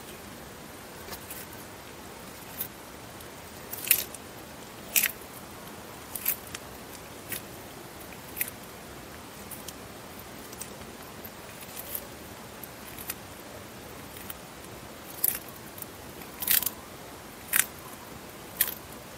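Eastern Hermann's tortoise biting and tearing crisp leafy greens: irregular sharp crunching snaps, the loudest about four and five seconds in and a quicker run of bites near the end.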